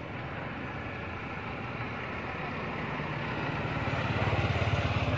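A motor vehicle's engine running close by, steady at first and growing louder over the last couple of seconds.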